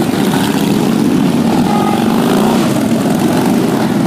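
Several motorcycle engines running at low speed as a group of bikes rides slowly in, their overlapping engine notes gently rising and falling.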